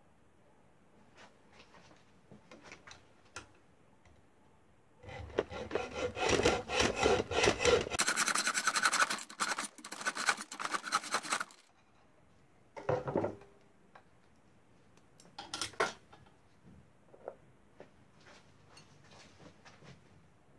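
Hacksaw cutting through a thin copper tube clamped in a bench vise: quick back-and-forth sawing strokes for about six seconds, starting about five seconds in. A few short light knocks follow.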